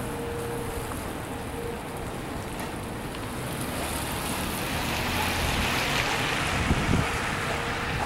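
Outdoor traffic noise: a faint engine hum fades out about two seconds in, then a hiss builds through the second half, like a vehicle passing.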